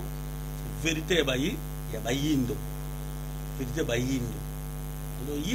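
A man talking in short phrases with pauses, over a steady electrical mains hum with many overtones that runs under the whole recording.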